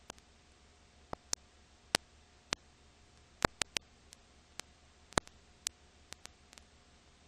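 Irregular clicks and pops, about two a second and uneven in strength, over a faint steady hiss, a low hum and a thin steady tone. This is the crackle and surface noise of an old film transfer with no recorded sound.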